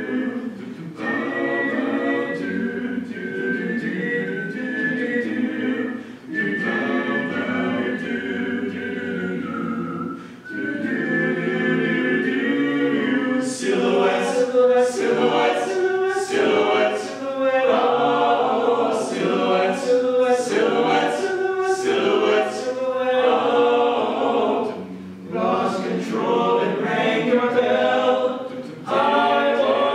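All-male a cappella group singing in close harmony. About halfway through, a steady beat of sharp percussive ticks, one to two a second, joins the voices.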